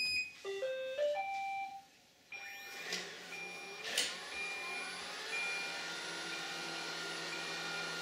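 Robot vacuum cleaners starting up: a high beep, then a short rising four-note start-up tune. After that, the robots' motors hum steadily while a short high beep repeats about once a second.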